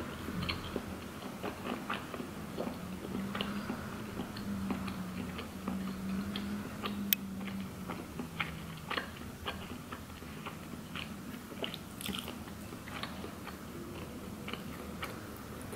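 Close-up mouth sounds of a person eating spicy ramen and rice cakes: wet chewing with irregular lip smacks and small clicks. One sharp click about seven seconds in is the loudest sound, and a faint low hum runs under the first half.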